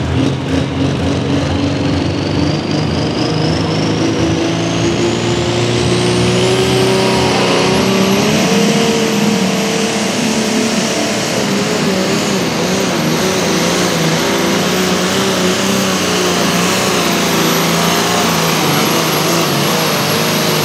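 Light Limited turbo pulling tractor's 466 cubic inch turbocharged engine at full power pulling a sled, its turbocharger whine climbing steeply over the first nine seconds or so and then holding a high steady pitch. Under it the engine note rises slowly, then wavers through the second half of the pull.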